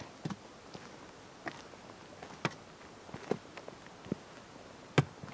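Footsteps of a hiker in boots on a stony dirt path, with a wooden walking staff planted on the rocks: irregular sharp crunches and knocks, the loudest one about five seconds in.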